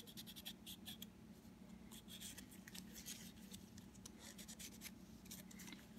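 Faint scratching of folded fine-grit (1000) sandpaper rubbed in short, irregular strokes along the grooves of a wooden revolver grip panel, over a low steady hum.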